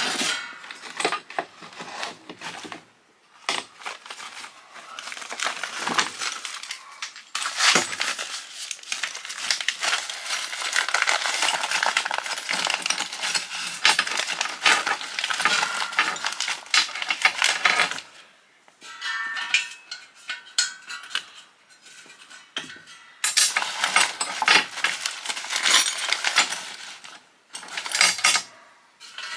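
Metal clinking, knocking and rattling as hand tools work on a metal exhaust fan to take it apart for scrap. There are scattered sharp clinks, and two long stretches of rapid clatter and scraping, one in the first half and a shorter one near the end.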